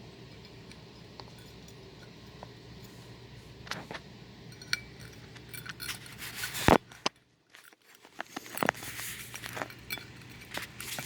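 Small metal and glass parts of a ceiling fan light kit clinking and tapping as they are handled, with one sharper knock about two-thirds through, over a steady low hum. The sound drops out almost completely for about a second just after the knock.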